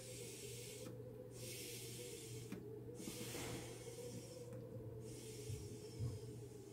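Faint airy hissing draws on a counterfeit calabash pipe being lit, about four puffs roughly every one and a half seconds with short pauses between them. The pipe's stem joint is badly sealed and lets air leak into the draw.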